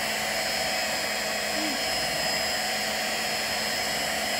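Electric hand mixer running at a steady speed, its beaters whirring through cake batter.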